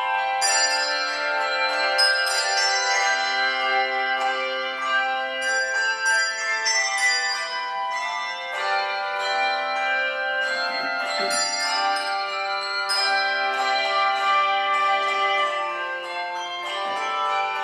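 Handbell choir playing a piece: many handbells struck in turn, their notes ringing on and overlapping.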